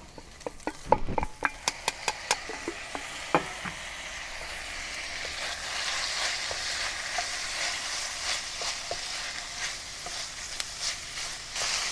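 Browned lamb pieces tipped from a steel bowl into a hot wok with onions and dried chilies, knocking and clattering for the first few seconds. Then a steady sizzle of stir-frying that grows louder, with light clicks and scrapes of a wooden spatula against the wok.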